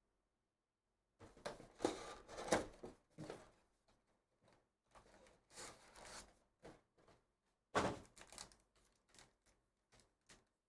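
Cardboard trading-card hobby box torn open, then its foil card packs rustling and crinkling as they are pulled out and shuffled in the hands. It comes in scratchy bursts, loudest from about a second in to three seconds, with a sharp crinkle near the end.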